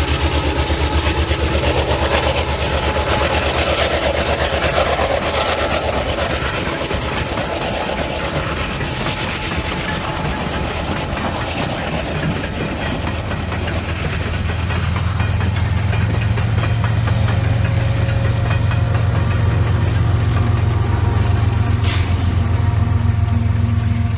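Freight train passing: a continuous rumble of rolling railcars. About halfway through, a steady low diesel engine drone grows louder. A short high hiss comes near the end.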